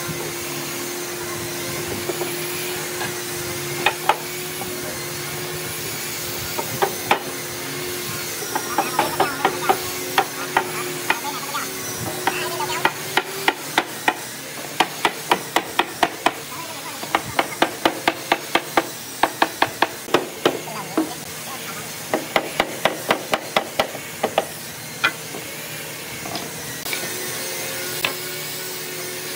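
Quick runs of light hammer taps on a hardwood trim strip being knocked into place along a wooden panel frame, several taps a second with short pauses between runs, stopping a few seconds before the end.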